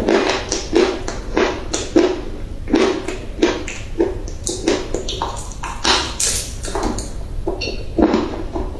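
Dry clay being crunched and crumbled, over and over: a quick run of gritty crunches, about two a second.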